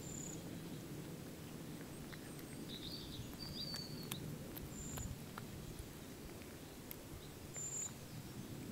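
A cat chewing a field mouse, with scattered sharp crunches as it bites through the bones. Small birds give short high chirps now and then over a steady low background noise.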